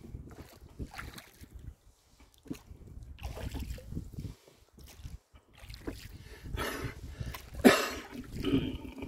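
Rowboat being rowed: oar strokes working the water, with intermittent low wind rumble on the lavalier microphone. The loudest sound is one sharp clunk about three-quarters of the way through.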